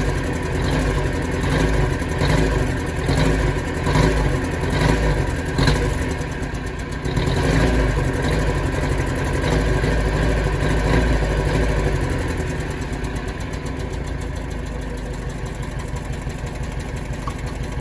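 Nissan R31 Skyline's CA18S 1.8-litre inline-four engine running on freshly fitted spark plugs and a new air filter. It swells and falls about once a second for the first six seconds, then settles to a steady idle.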